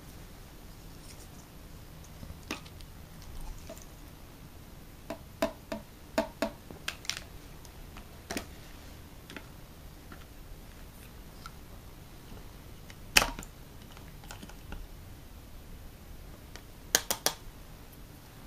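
Scattered sharp plastic clicks and taps from handling tube-feeding syringes, a feeding-tube valve and plastic measuring jugs: a run of clicks in the first half, one loud click about two-thirds through, and a quick triple click near the end.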